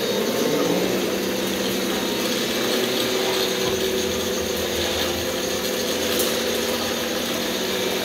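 Electric motors and gearing of an RC scale wheel loader with a sweeper brush, running in a steady geared whine. The pitch rises as it spins up in the first second, then holds.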